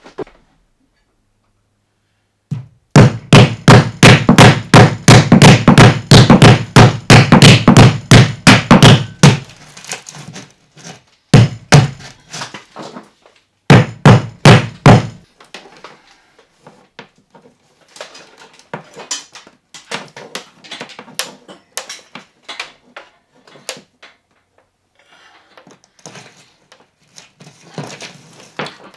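Hammer blows on a wooden ceiling joist, fastening electrical cable with staples: a fast, loud run of strikes at about four or five a second lasting several seconds, then two shorter runs. After them come faint, scattered knocks and rustling as the cable is handled.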